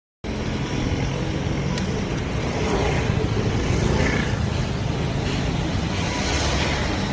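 BMW G 310 RR's single-cylinder engine idling steadily through its stock exhaust.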